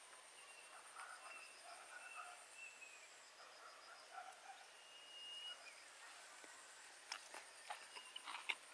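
Faint forest ambience: insects trilling steadily in a high pulsing whine, with short whistled bird calls and chirps over it. From about seven seconds in, a scatter of light clicks and crackles starts.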